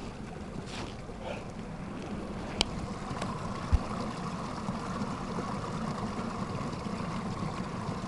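Stream water running steadily beneath the ice shelf of a frozen waterfall, the rushing growing a little louder partway through. Two brief knocks near the middle.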